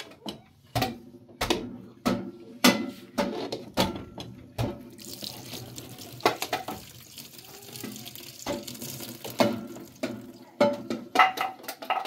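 Knocks and clatter of pots and dishes, with liquid running steadily for about five seconds in the middle.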